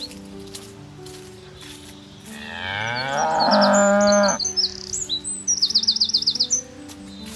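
A cow mooing once: a long call that rises in pitch and then holds, starting about two seconds in and lasting about two seconds. Right after it, a songbird sings quick runs of high chirps.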